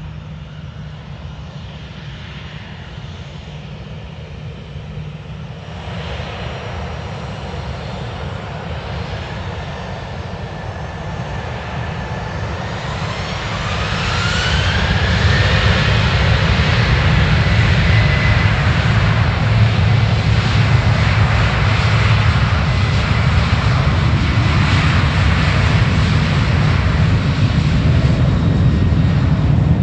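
Boeing 737 jet engines spooling up to take-off thrust: a rising whine about halfway through as the sound swells, then loud, steady engine noise as the aircraft accelerates down the runway.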